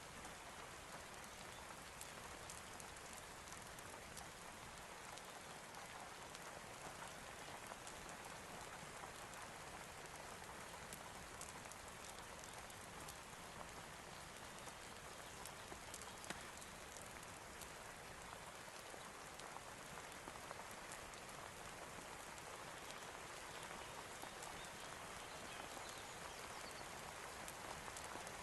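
Steady rain: an even, faint hiss with scattered light ticks of drops.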